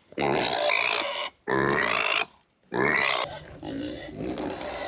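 Hungry pigs calling for food: three long, loud, wavering cries in the first three seconds, then quieter calls.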